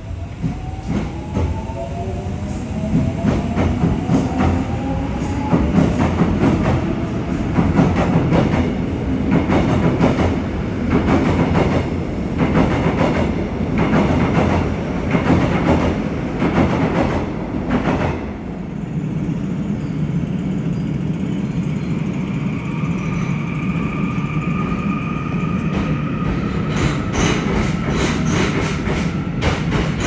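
Electric commuter train wheels rolling over a bolted rail joint, making a regular clickety-clack as each wheelset crosses the gap, over a rumble. A motor whine rises early on. After about 18 s the clacking gives way to a steadier rumble with a rising whine, and the clacks return near the end.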